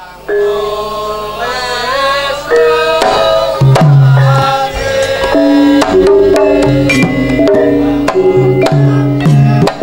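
Javanese gamelan music for a lengger dance: struck gong-chime and metallophone notes with deep kendang hand-drum strokes, opening with a sliding melodic line.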